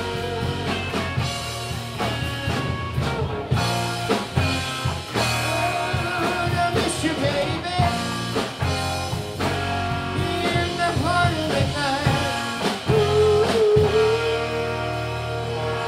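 Live rock band playing: electric and acoustic guitars over bass and drum kit, with a long held lead note in the last few seconds.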